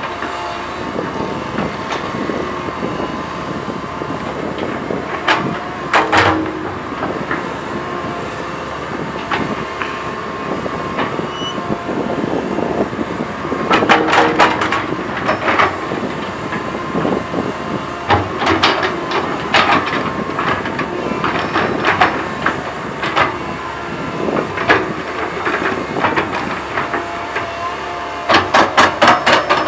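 Komatsu PC130 hydraulic excavator running steadily while levelling soil, with repeated sharp metallic clanks and rattles, in clusters about halfway through and in a quick run of clanks near the end.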